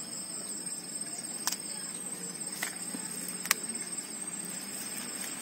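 Steady high-pitched trilling of crickets. A few light clicks and taps from hands handling a small plant pot and soil, the sharpest about three and a half seconds in.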